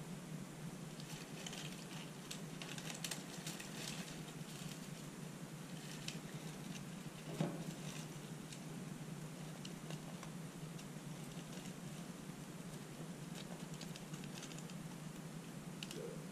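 Dry straw rustling and crackling as hands move through it, with scattered light clicks and one sharper tap about seven seconds in, over a steady low hum.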